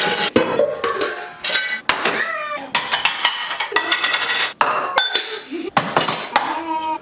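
Dishes and cutlery clattering and clinking in quick, repeated knocks as a dishwasher is unloaded.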